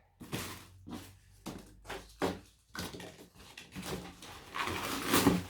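Packaging being handled while a parcel is unpacked: a run of short rustles, crinkles and light knocks, with a longer rustle near the end.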